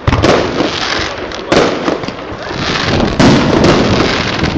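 Aerial firework shells bursting: three sharp bangs about a second and a half apart, each trailing off into a long echoing tail.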